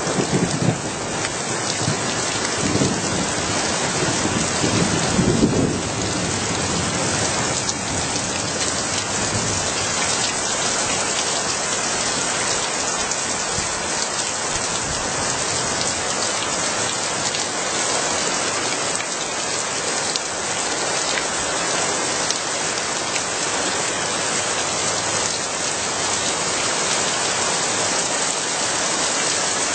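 Steady rain falling, with a low rumble of thunder through the first six seconds before the rain carries on alone.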